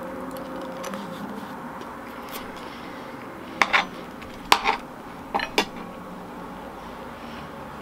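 Metal fork clinking against a dish while eating: six sharp clinks in three quick pairs in the middle, over a low background.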